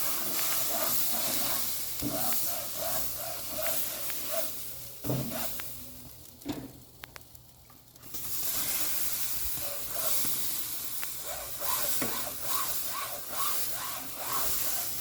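Cold-water-soaked sponge brush scrubbing hot grill grates, sizzling and hissing as the water turns to steam, with back-and-forth strokes about twice a second. The scrubbing pauses for a couple of seconds midway, then resumes.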